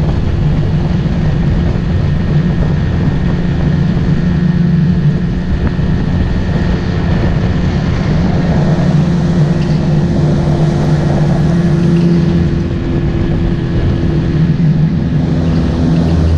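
Motorboat engine running steadily under way, its low drone holding an even pitch over a rush of wind and water noise.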